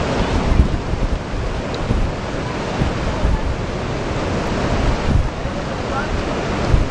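Steady rush of a fast, flooded whitewater river, with wind buffeting the microphone in uneven low bumps.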